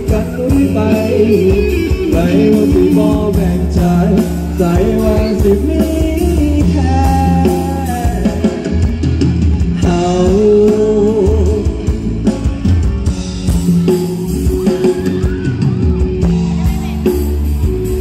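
Live band music with singing, played loud through an outdoor concert sound system, with a steady beat and bass.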